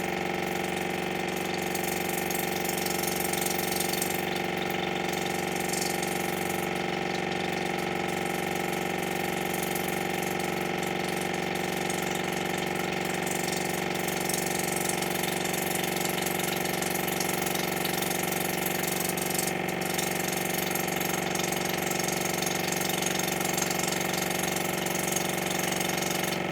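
Water flosser's small pump motor running with a steady hum while it jets water into an ear to flush out earwax.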